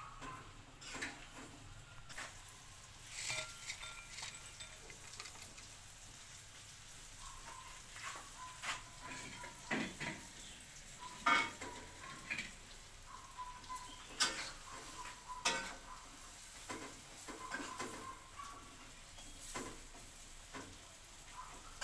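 Hot cooking oil sizzling as battered tofu fries, a steady hiss with scattered sharp crackles and pops.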